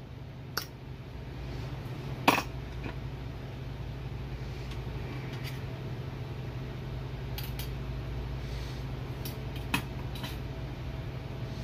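Light metal clinks and taps of automatic-transmission valve-body parts and the steel separator plate being handled on the bench, with a sharper clink a little over two seconds in, over a steady low hum.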